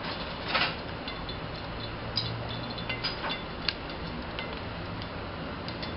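Cooking oil heating in a steel pot on medium heat: a steady hiss with a few faint scattered ticks and pops as it comes up to temperature.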